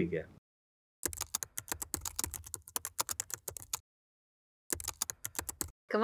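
Computer keyboard typing: a quick run of key clicks lasting nearly three seconds, then a shorter burst of clicks about a second later, with dead silence around them.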